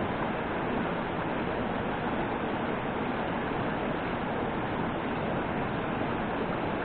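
Steady rushing noise, even and unbroken, like wind on the microphone or falling water.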